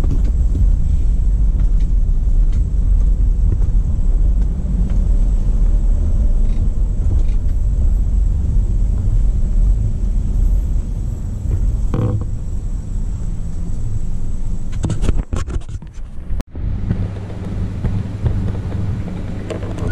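Steady low rumble of engine and tyres heard from inside a moving car, with a few clicks near the end. After a sudden cut, a steadier, quieter hum follows.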